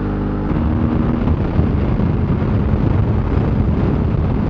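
BMW F800GS parallel-twin engine running under way, heard from a bike-mounted camera. About half a second in, the steady engine note gives way abruptly to a rougher, louder rush of wind and road noise over the engine, as at highway cruising speed.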